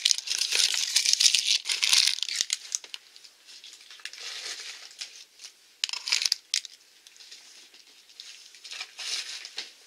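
Toy packaging being handled: plastic and foil blind-bag wrappers crinkling and rattling, densest in the first three seconds, then a few short rustles and clicks.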